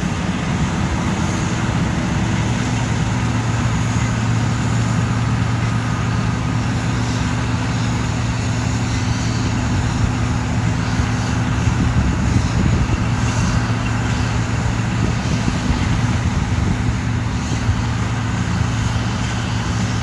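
Large diesel farm machinery running steadily: a loud, even engine drone with a low hum that holds unchanged.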